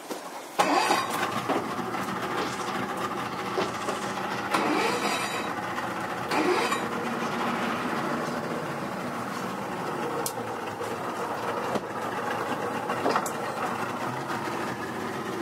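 Twin Yamaha 200 outboard motors running at low speed with a steady engine drone. The drone comes in suddenly about half a second in.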